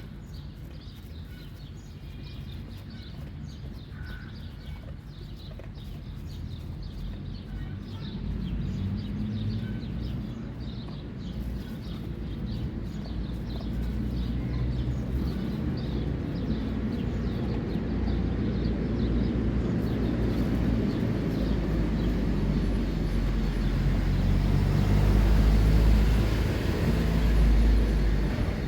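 Low engine rumble growing steadily louder, as of a vehicle drawing near, with faint rapid ticking in the first half.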